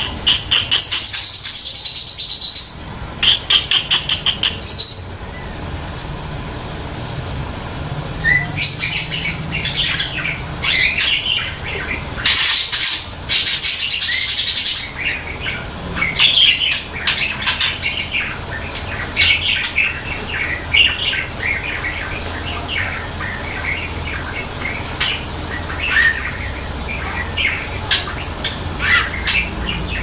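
Budgerigar singing a long warble. In the first five seconds it gives harsh, buzzy, rapid rattles, then after a short pause it runs on in a stream of quick, varied chirps and whistles.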